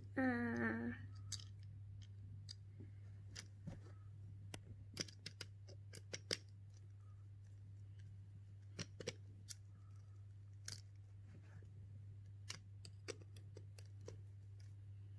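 Small screwdriver turning a screw in a Plarail toy train's plastic chassis, giving irregular small clicks and ticks. A short voiced hum comes near the start.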